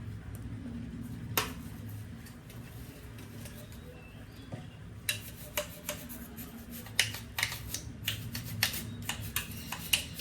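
Light plastic clicks and taps from handling the parts of a Dyson V8 cordless vacuum while it is being cleaned, sparse at first and coming quickly one after another from about halfway through, over a low steady hum. The vacuum's motor is not running.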